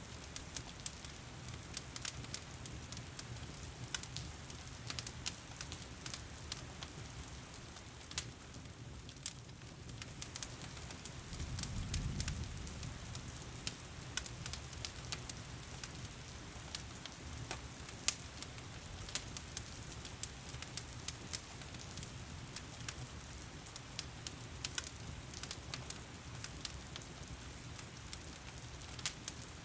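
Wood fire crackling, with irregular sharp pops and snaps over the steady hiss of heavy rain. A low rumble swells briefly about twelve seconds in.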